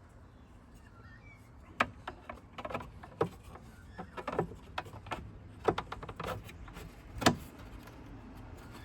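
Hard plastic clicks and knocks as a Lid Lock clip is worked and pressed onto a Holden Colorado's plastic airbox until it snaps into place. It is an uneven string of sharp clicks, with the loudest about two seconds in and again near the end.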